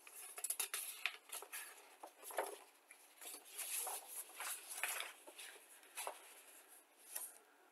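Paper rustling and crackling in an irregular run as a large fold-out model-kit instruction sheet is unfolded and refolded by hand.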